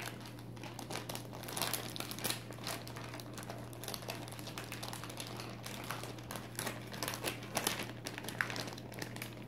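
Plastic package of sliced provolone cheese crinkling in the hands as it is handled, with a run of irregular crackles.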